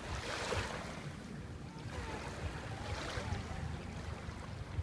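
Sea waves washing ashore, swelling in a hiss at the start and again about three seconds in, over a steady rumble of wind on the microphone.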